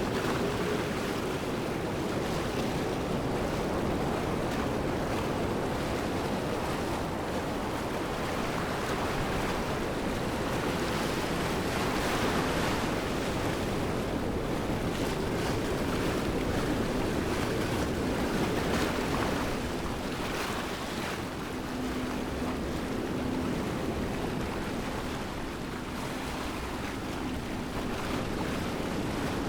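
Waterfall rushing steadily: a continuous, even roar of falling water.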